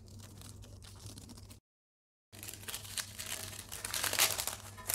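Scissors cutting folded butter paper, faint at first. After a short gap of dead silence comes the crinkle and rustle of the paper as the cut circle is unfolded, loudest about four seconds in.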